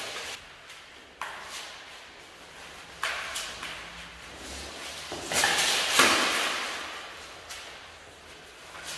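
Armoured fencers moving and closing in: footsteps on a wooden parquet floor with the rustle and jingle of mail and the clack of plastic limb armour. There are sharp knocks about one and three seconds in, and a louder scuffle of mail and knocks around six seconds in.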